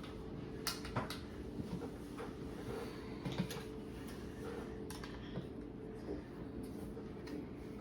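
Plastic Lego bricks being handled and pressed together: scattered light clicks and knocks over a steady low hum.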